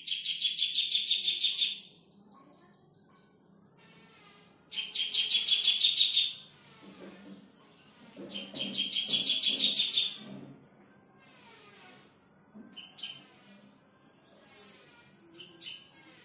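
Bar-winged prinia (ciblek) nestlings begging in the nest: three bouts of rapid, high-pitched calls, each lasting one and a half to two seconds. A couple of short, fainter calls follow near the end.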